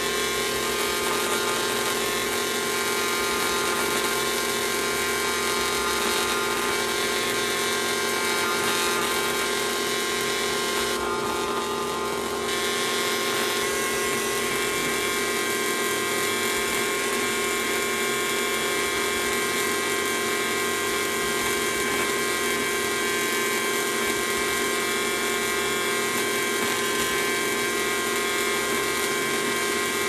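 Battery-powered toy microwave running its cooking cycle: a steady, loud buzzing hum with the turntable turning.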